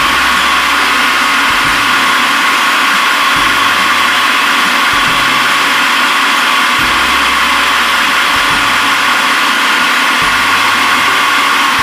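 Food processor motor running steadily with a whine, grinding chicken into a smooth forcemeat paste.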